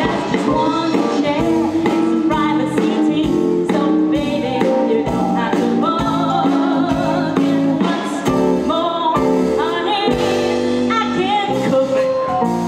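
A woman singing a comic show tune live into a handheld microphone over instrumental backing, with wavering held notes.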